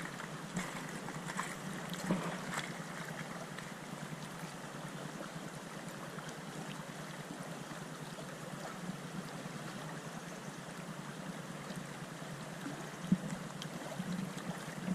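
River water running steadily, with a few faint clicks and knocks in the first few seconds and again near the end.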